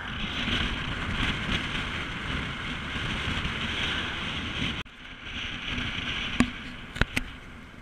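Wind rushing over the camera microphone, with road noise from a 1965 Ford Mustang convertible driving with its top down. The level drops suddenly a little before halfway, and three sharp clicks come in the last couple of seconds.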